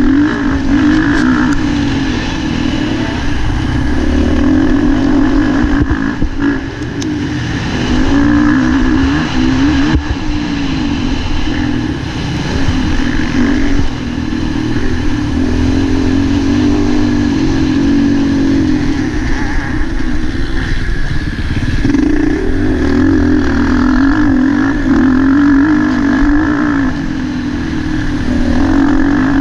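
Motocross bike's engine heard from its onboard camera while racing, its pitch rising and falling with the throttle, with several short lulls where the throttle is shut off.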